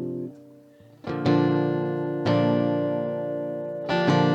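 Guitar chords strummed and left to ring: one chord dies away at the start, then after a short pause three more chords are struck, about one, two and four seconds in.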